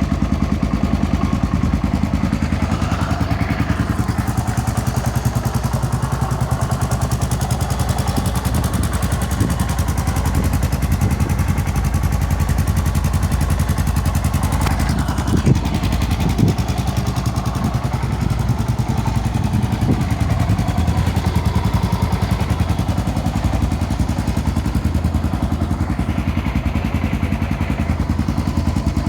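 Yamaha XT600E's air-cooled single-cylinder four-stroke engine idling steadily with an even, thumping firing pulse. Two short knocks come through about halfway.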